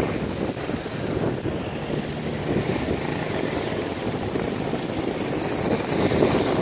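Small twin-engine propeller plane's engines droning steadily as it takes off and climbs away, growing a little louder near the end.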